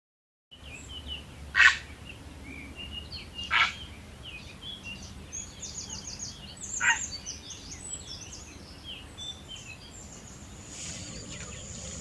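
Marsh ambience of many small birds chirping and trilling, starting about half a second in, with three loud, short bird calls standing out in the first seven seconds. A steady high thin tone joins near the end.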